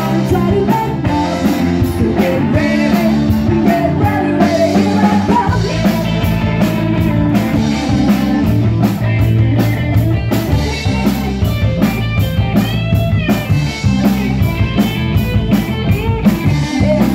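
Live rock band playing: electric guitar and electric bass over a drum kit keeping a steady beat on the hi-hat or cymbals.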